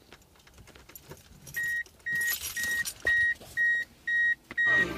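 Light jangle and clicks of a key ring at the ignition, then a Ford warning chime beeping steadily, about two beeps a second, with the key in the ignition. Near the end the car's radio comes on loudly under the chime as the key is turned.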